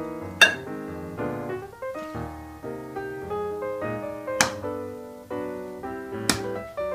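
Piano music playing, with three sharp taps or clicks over it, the first and loudest about half a second in.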